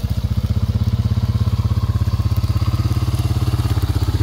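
Honda ATV engine idling steadily close by, a rapid even putter with a deep hum.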